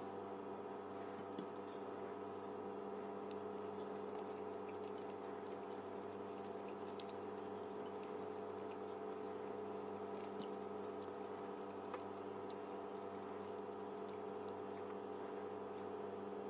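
Faint chewing and small mouth clicks of a person eating fish, over a steady background hum with several fixed tones.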